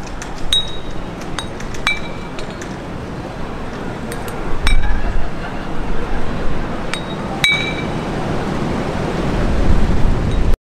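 Glass bottles hanging in a tree clinking against each other: scattered sharp clinks, several with a short bright ring, over a steady low rumble. The sound cuts off suddenly near the end.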